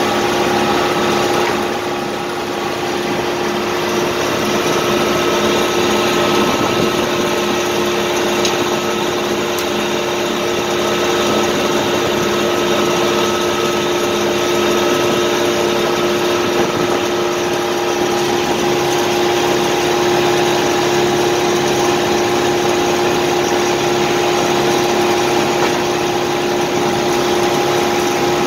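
Farm tractor engine running steadily at a constant speed, heard close to its upright exhaust stack.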